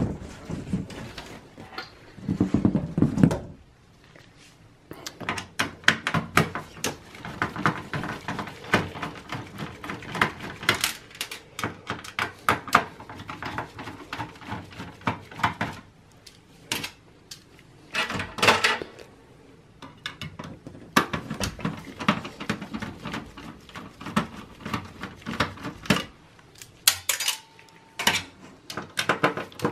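Phillips screwdriver working screws on a motherboard inside a steel computer case: many small, irregular metallic clicks and rattles, with a heavier knock about two to three seconds in.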